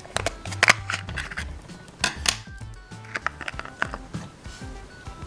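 Small plastic Shopkins figures and playset pieces clicking and tapping as they are set into a plastic stand, a handful of sharp clicks over background music.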